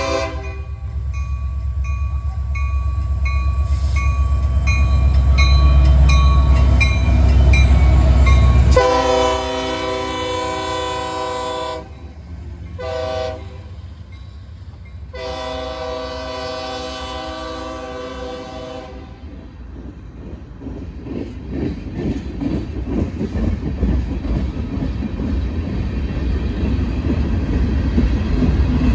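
Diesel freight locomotives rumbling as they approach. Then the lead locomotive's Nathan K5LLA five-chime air horn sounds a long blast, a short one and another long one, the end of the long-long-short-long grade-crossing signal. After that come freight cars passing close, with the clickety-clack of wheels over the rail joints.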